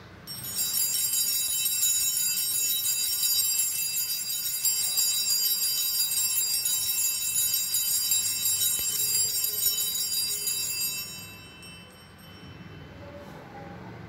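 Altar bells shaken in a continuous ringing for about ten seconds, then stopping. They mark the elevation of the chalice at the consecration of the Mass.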